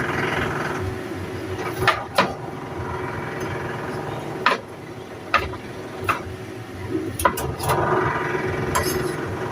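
A handful of sharp, irregularly spaced knocks over a steady low background hum.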